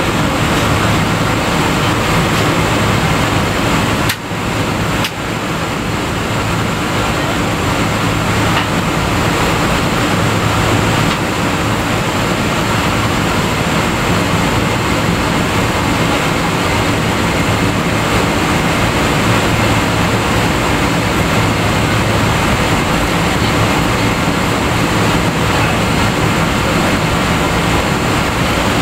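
Steady cabin noise inside a Boeing 777-200ER taxiing, heard from a window seat over the wing: the Rolls-Royce Trent engines at low taxi power with a low hum and a constant hiss. The noise dips briefly twice, about four and five seconds in.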